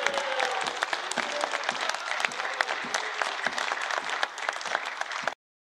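Applause from members seated in a parliamentary chamber: dense, steady clapping that cuts off suddenly near the end.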